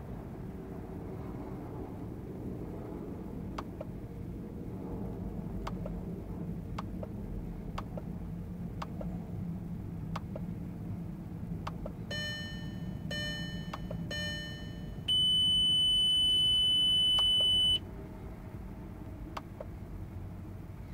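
Ford Galaxy instrument-cluster buzzer sounding during a diagnostic output test: three short beeps, then one long steady beep of about two and a half seconds. Under it run a steady low hum and sharp clicks about once a second, also from the cluster self-test.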